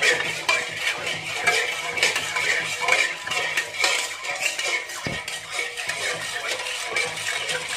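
A metal spoon clinking and scraping against a wok while stirring coconut milk and sugar as it heats, over background music.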